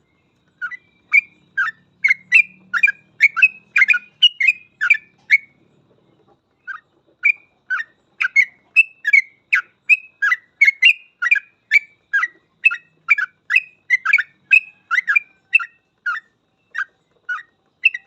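Yellow-vented bulbul (trucukan) singing a fast, continuous run of short, bright chirping notes, about two to three a second, with a brief break about five and a half seconds in.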